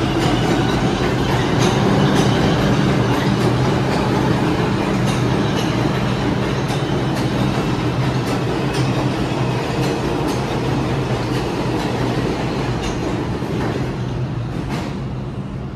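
New York City Subway 4 train running away along the track in an underground station, its wheels clicking over rail joints under a steady low hum, slowly fading.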